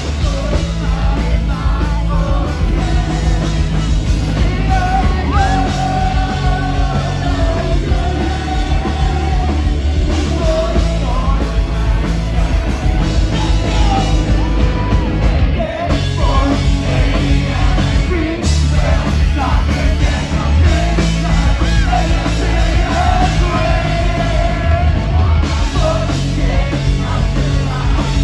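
Rock band playing live at full volume: distorted guitars, bass and drums under a vocalist who sings and yells.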